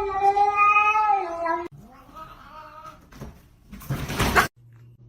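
A cat yowling: one long, wavering call that cuts off abruptly about a second and a half in, followed by a fainter, shorter meow. A short noisy burst comes near the end.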